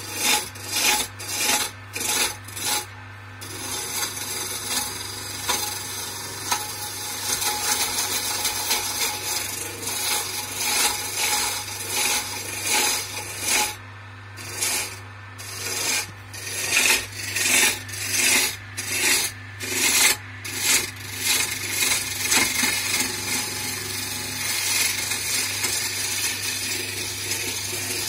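A hand-held gouge cutting a spindle spinning on a wood lathe, peeling off long shavings: a continuous scraping hiss. The hiss swells in repeated strokes about twice a second near the start and again in the middle, over a steady low hum.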